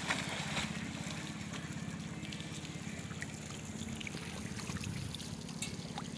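Swimming-pool water lapping and trickling over a steady low mechanical hum, with a last splash or two in the first second.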